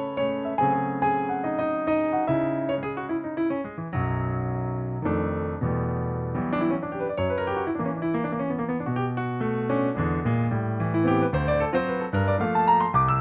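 Solo piano played on a Yamaha P-515 digital piano: chords and melodic lines moving through changing harmonies, with a quick rising run near the end.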